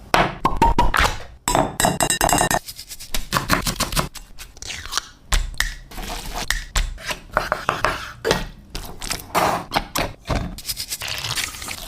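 Kitchen clatter: utensils knocking, clinking and scraping against pots and dishes in quick, irregular strokes.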